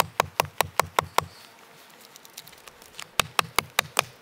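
Wooden mallet tapping a wooden wedge into a saw cut in the top of a log to split it: quick light knocks, about five a second. They stop for nearly two seconds, then another run of knocks follows.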